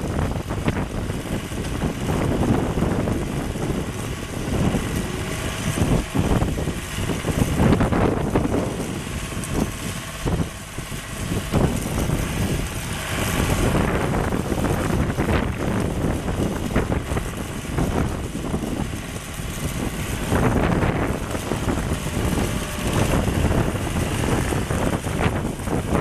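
Deutz F3L1011 three-cylinder diesel engine of a LeeBoy 1000BH asphalt paver running steadily, with gusts of wind buffeting the microphone.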